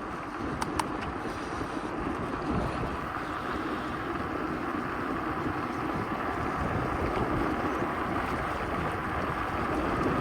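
Steady wind noise buffeting a handheld phone microphone while riding a gravel bike, mixed with the low rumble of the bike's tyres rolling, with a couple of faint clicks just under a second in.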